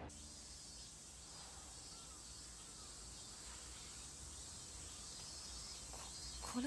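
Faint outdoor ambience: a steady high insect drone, with a few faint chirps about two seconds in.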